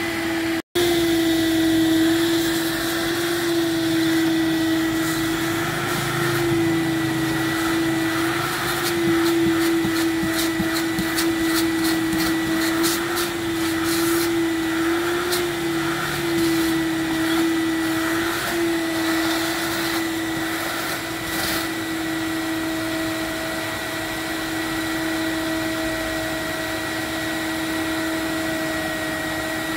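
Stainless-steel canister wet-and-dry vacuum cleaner running steadily with a constant motor whine as its hose is worked over a van's seats and floor. Scattered small clicks come through the middle stretch, and the sound drops out for an instant just under a second in.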